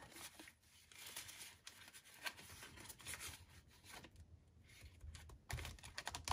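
Faint rustling and crinkling of paper banknotes being slid into a clear plastic pouch in a ring binder, with soft ticks as the binder pages are flipped over.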